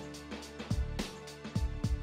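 Background music with a steady drum beat and sustained notes.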